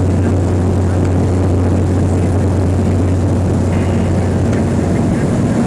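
Cessna 208 Caravan's Pratt & Whitney PT6A turboprop and propeller running at steady power: a constant low drone.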